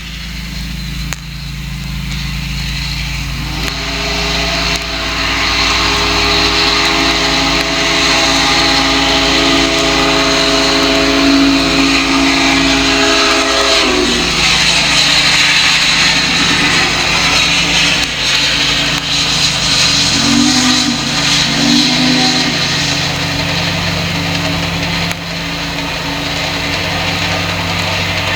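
Duluth, Missabe and Iron Range Yellowstone No. 225, a 2-8-8-4 articulated steam locomotive, approaching and passing with its steam whistle sounding one long chord-like blast and, later, two short toots over the rushing sound of the engine working. The rush grows louder as the locomotive comes nearer.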